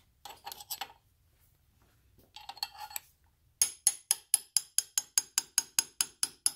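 A small hammer tapping a pin punch in quick, light, even strikes, about five a second with a metallic ring, driving the pin out of the oscillator drive block. Before the tapping starts there are two short bursts of rattling as the punch is set in place.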